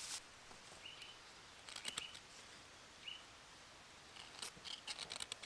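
A fire striker scraped to throw sparks onto a cramp ball fungus, in two bursts of short rasping strokes, about two seconds in and again near the end. A few faint short bird chirps.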